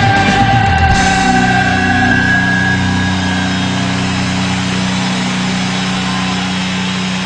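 A live rock band's closing chord: the drumming stops about a second in and a held amplified chord rings on, slowly fading, over a steady crowd noise.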